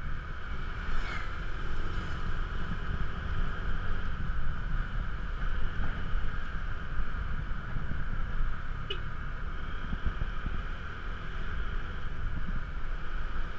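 Wind rumbling on the microphone of a motor scooter on the move, over the scooter's engine running steadily. A single sharp click about nine seconds in.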